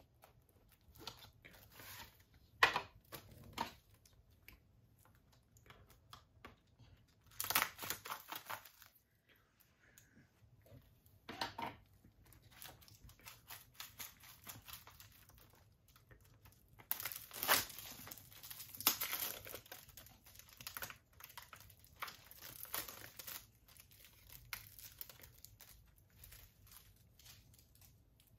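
Plastic shrink-wrap being torn and crumpled off a Blu-ray case: irregular bursts of crackling and rustling, loudest about eight seconds in and again just past the middle.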